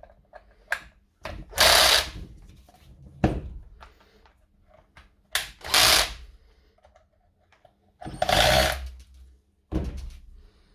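Small power driver running in several short bursts of about a second each, with clicks between, driving the housing screws back into a rotary hammer during reassembly.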